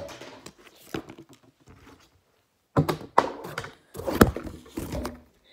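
Handling noise: a series of thuds and knocks as dog toys are moved about and set down on a table close to the microphone, with the arm brushing past it. The knocks stop for a moment in the middle, then come thicker, the loudest about four seconds in.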